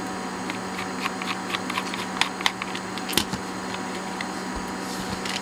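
Small precision screwdriver undoing the tiny case screws of a cassette Walkman: scattered light clicks and ticks of the blade and screws against the casing, with one louder click about three seconds in.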